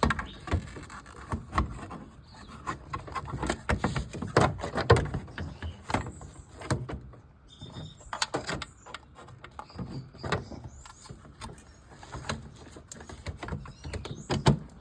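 Irregular plastic scraping, clicks and knocks as a replacement Toyota Aqua turn-signal lamp housing is worked by hand into its mounting hole, with the sharpest knocks about five seconds in.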